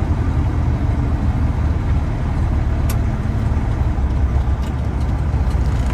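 Freightliner Classic XL semi truck's diesel engine running steadily at low speed in slow traffic, a low rumble heard from inside the cab, with one brief click about halfway through.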